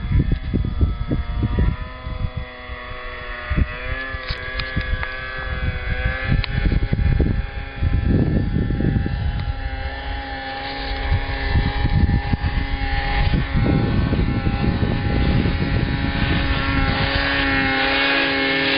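Snowmobile engine running steadily, its pitch wavering slightly, with wind buffeting the microphone; a hiss grows louder near the end.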